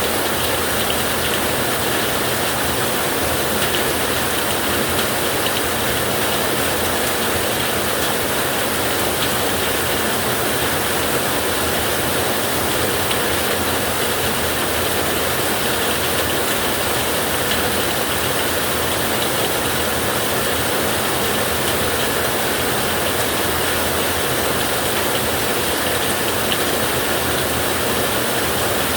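Steady, even rushing noise of an ocean-surf sleep-sounds track, holding one level throughout with no distinct wave swells or thunder rumbles.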